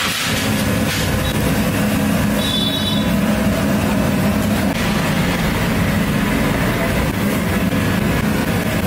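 Steady low drone and hiss of a steam boiler feeding idli steaming cabinets, with a short high metallic ring a few seconds in as steel idli trays are handled.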